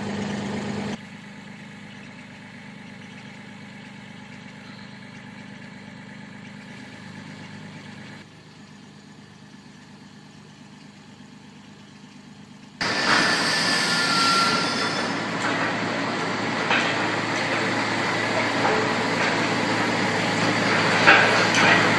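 Mini excavator's diesel engine running, much quieter through a long middle stretch. From about two-thirds of the way in it is loud and rough, with occasional clanks as the arm works.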